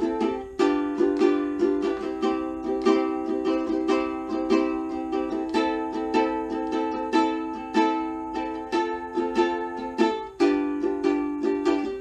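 A ukulele strummed in a steady rhythm, several strums a second, with a change of chord about half a second in and again near the end.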